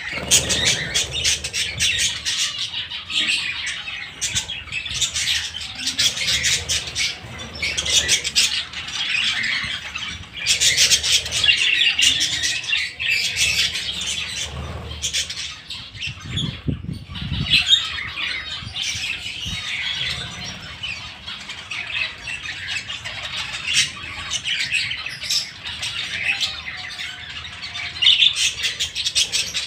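A flock of budgerigars chattering without pause, a dense mix of warbles, chirps and clicks, with a brief low rumble about halfway through.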